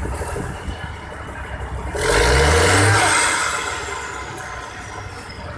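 Mobile crane's diesel engine running, then revving up about two seconds in with a sudden loud rush of hiss. As the revs die away, a high whistle slowly falls in pitch.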